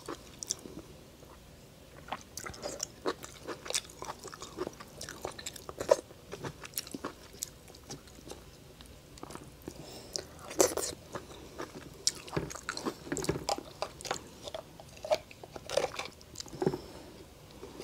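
Close-miked eating sounds: the shell of a cooked lobster claw clicks and cracks as the meat is picked out by hand, with chewing in between. The clicks come irregularly, a few louder ones standing out.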